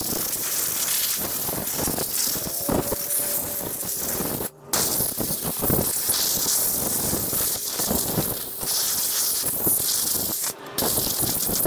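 Compressed-air blow gun hissing loudly as it blasts rinse water out of a motorcycle engine's aluminium stator cover, cut off briefly twice, about four and a half seconds in and near the end, as the trigger is let go.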